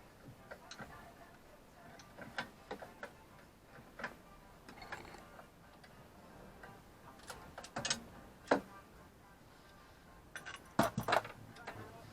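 Scattered light clicks and metallic knocks from hand tools working on a boat's inboard engine, irregular rather than a steady rhythm. A few sharper knocks come about eight seconds in and again near the end.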